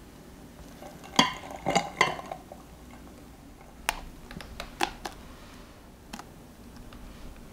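Knocks and clinks of a utensil and glass mixing bowls while whipped cream is portioned onto a kitchen scale: a quick cluster of ringing knocks about a second in, then a few lighter single clicks.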